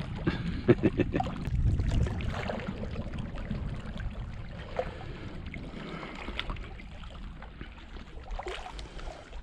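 Sea water lapping and washing against a rocky shoreline, with a few clicks and knocks in the first two seconds.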